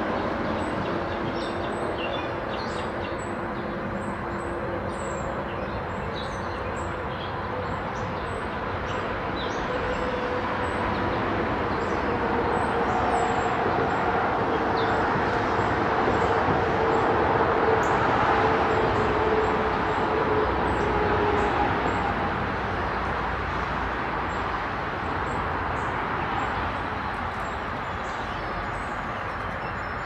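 Rumble of passing vehicles that swells through the middle and then eases off, with a low drawn-out hum in it. Short, faint bird chirps run through it.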